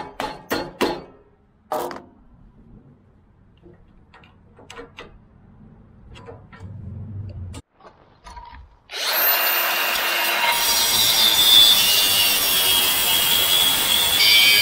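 A few sharp knocks in the first two seconds, then about nine seconds in a Milwaukee angle grinder starts up and cuts into a metal tube, a loud steady grinding with a high whine.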